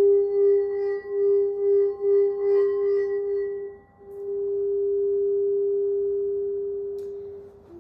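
Crystal singing bowl sounding one sustained tone with faint higher overtones, pulsing in loudness at first. About four seconds in it cuts off briefly, then sounds again smooth and even, swelling and slowly fading near the end.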